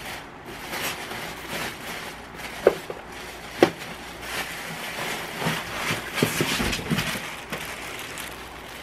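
Plastic packaging rustling and crinkling as it is handled and pulled out of a cardboard box, with two sharp knocks about a second apart near three seconds in.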